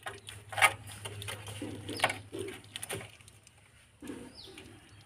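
A mongoose chewing a raw fish, with sharp crunching cracks about half a second in, then near two and three seconds. Low cooing calls sound twice, in the middle and near the end, with a brief falling high chirp.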